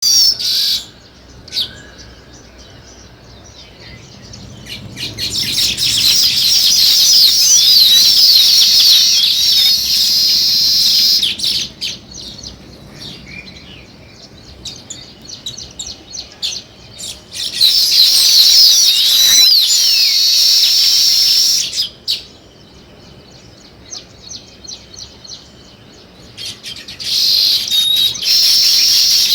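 House sparrows chirping, many at once, in loud spells of several seconds separated by quieter stretches of scattered chirps.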